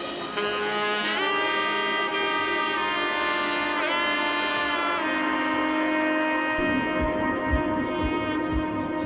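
Background music: a melody of long held notes that now and then bend in pitch, joined about two thirds of the way through by a steady low drum beat.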